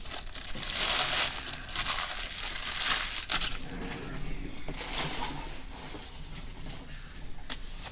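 Plastic trading-card pack wrappers crinkling and being torn open, in a few separate rustles, the loudest about a second in.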